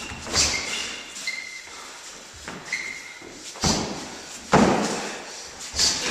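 Boxing sparring: about five dull thuds of gloved punches landing and feet striking the ring floor, the loudest a little past halfway, with a few short high squeaks of shoes on the canvas in between.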